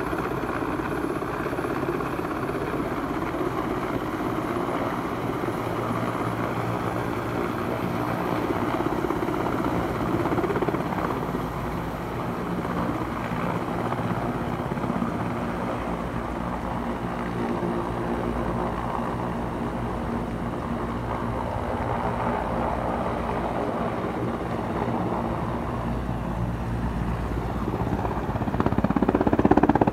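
Mil Mi-8-type helicopter coming in to land, its main rotor and turbines running with a steady drone that grows louder near the end.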